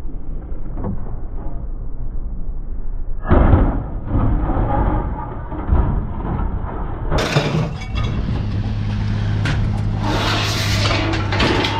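Scrap metal being thrown onto a scrap yard pile: a heavy crash about three seconds in, a sharper clank near six seconds, then longer clattering crashes of metal in the second half, over a steady low hum.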